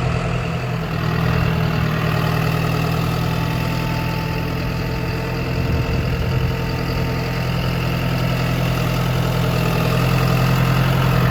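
Farm tractor engine running steadily as the tractor drives across a field.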